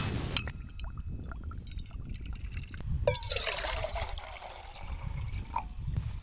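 Liquid fuel dribbling from a squeeze bottle into a camping stove's small burner cup, with small clicks. About three seconds in, water is poured from a bottle into a metal camping pot for about two seconds.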